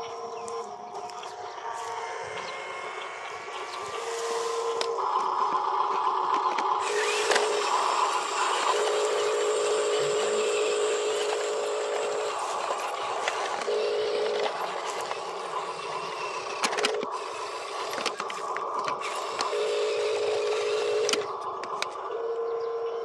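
Small electric motors of a radio-controlled dump truck whining in steady spells of one to three seconds that start and stop abruptly, as it drives and tips its bed, with scattered clicks.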